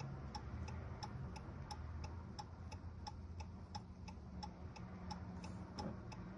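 Steady, even ticking, about three ticks a second, over a low steady hum.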